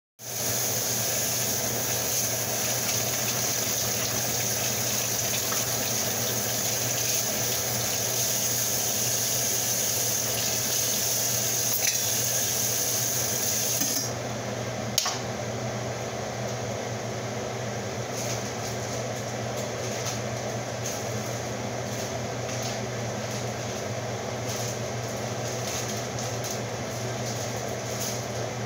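Kitchen tap running steadily, then shut off about halfway through, leaving a steady background hum. A single light knock comes just after the water stops.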